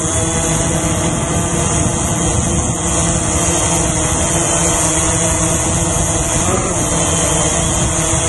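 Drone's electric motors and propellers whining steadily, heard from a camera mounted on the drone itself, with a hiss above the whine. The pitch lifts and falls back briefly about six and a half seconds in, as the motors speed up for a moment.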